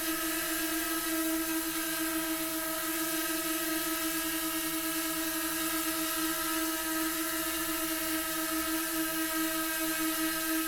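DJI Mini 2 quadcopter drone in flight: the steady high-pitched whine of its four propellers, holding one even pitch over a constant hiss.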